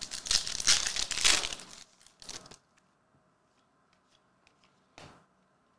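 Trading-card pack wrapper being torn open and crinkled by hand for the first two and a half seconds or so, then a brief rustle near the end.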